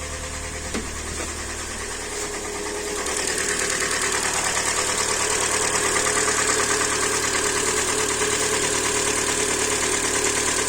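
Hyundai Elantra's 1.8-litre G4NB aluminium engine idling with a rhythmic knock, growing louder about three seconds in. The knock is the characteristic piston knock of this engine family; the timing chain has been ruled out.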